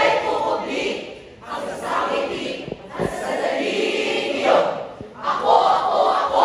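Many voices of a student speech choir shouting lines together in unison, in loud phrases with short breaks. Two short thuds come about three and five seconds in.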